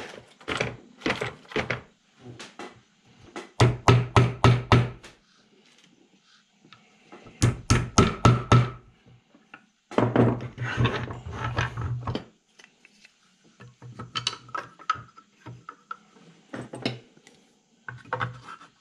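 Hammer tapping wooden pegs into holes in a wooden toy, in several quick runs of sharp knocks with scattered single taps between.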